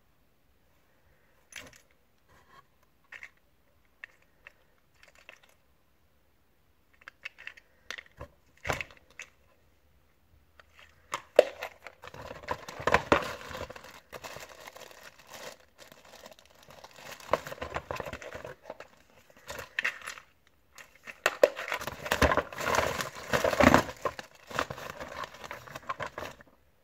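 Hands handling plastic packaging: a few scattered clicks and taps of a hard plastic case, then from about eleven seconds in a clear plastic bag crinkling and rustling in two long spells with a short pause between them.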